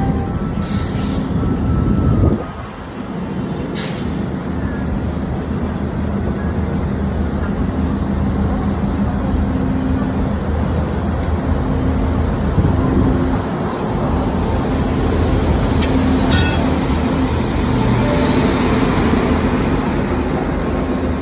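Indian Railways WAG-9 electric locomotive standing at the platform, its machinery running with a steady hum of low tones over a rushing noise. A louder rush at the start cuts off sharply about two seconds in.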